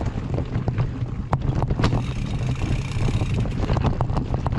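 Mountain bike rolling over a root-strewn dirt trail, with a steady rumble of wind on the microphone and frequent sharp clicks and knocks from the bike rattling over the roots.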